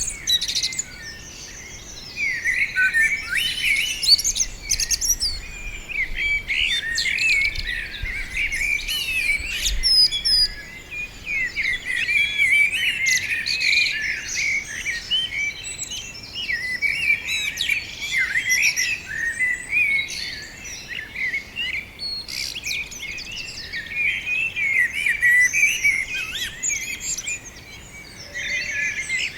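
A chorus of many small birds singing together: a dense run of quick, high chirps and trills, with brief lulls about a second in and near the end.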